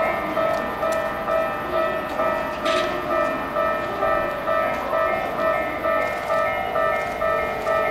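Keikyu 800 series electric train running in towards the platform, with a ringing tone repeating evenly a little under twice a second over it. A short hiss comes about two and a half seconds in.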